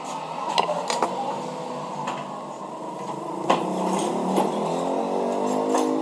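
Scattered sharp metallic clicks and taps of a tool working on a sewing machine's needle bar mechanism, about eight in all.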